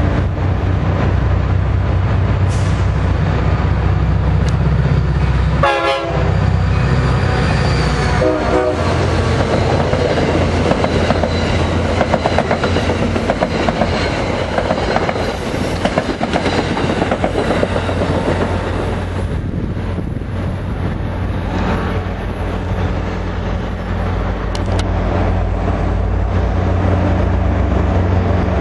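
NJT GP40PH-2A diesel locomotive's air horn sounding two short blasts, then the train passing at speed with rapid rhythmic wheel clatter. A standing train's low engine hum runs steadily underneath.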